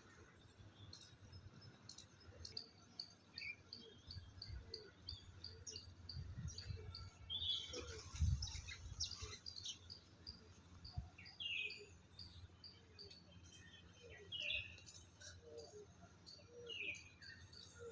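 Birds chirping: short falling calls every few seconds over a steady run of high, short pips about three a second. A brief low rumble about eight seconds in is the loudest moment.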